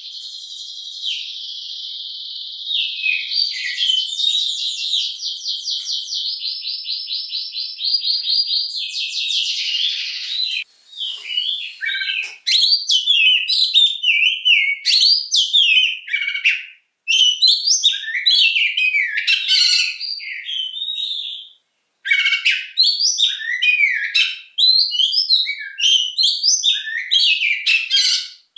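Oriental magpie-robin singing. It opens with a long, rapid, buzzing trill for about the first ten seconds. Then it breaks into a fast run of varied whistles and chirps, with two brief pauses.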